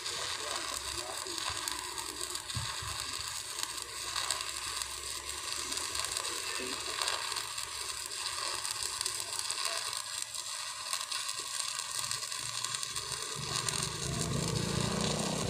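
Electric arc welding on a steel column base: the arc crackles and sizzles steadily as the bead is laid. A lower hum joins in near the end.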